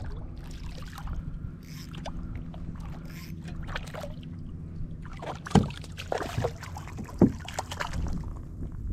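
Handling noise aboard a fishing kayak: rustling and light clicks with two sharp knocks past the middle, over a steady low hum of wind and water against the hull.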